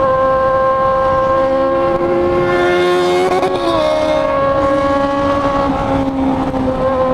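Yamaha XJ6 inline-four motorcycle engine running at high, steady revs, its note held at one pitch. A second motorcycle's engine climbs in pitch about two and a half seconds in, then drops away about a second later. Wind noise runs underneath.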